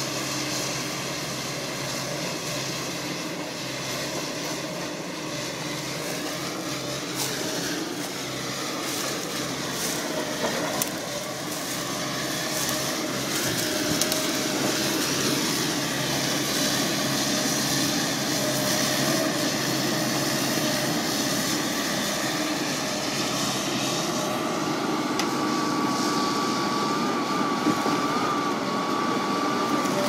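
JCB JS200 LC hydraulic excavator running under load as it slews and swings a grapple full of eucalyptus logs. The engine and hydraulics are steady, getting louder about twelve seconds in, with a few sharp knocks a quarter to a third of the way through and a steady high whine in the last quarter.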